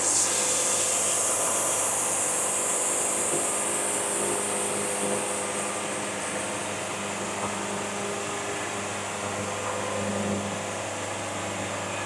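Band sawmill cutting a board from a walnut log: the mill's steady running hum with the hiss of the band blade in the wood, which comes in at the start and is strongest in the first half.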